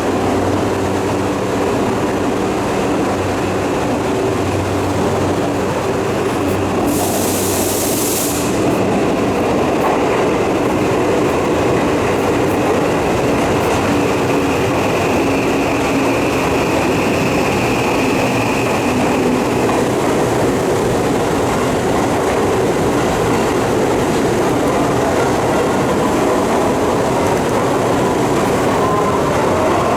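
Tokyu 3020 series electric train running on the line: a steady rumble with wheel clatter and a low hum. A short hiss comes about seven seconds in, and a faint high tone is held from about eleven to twenty seconds.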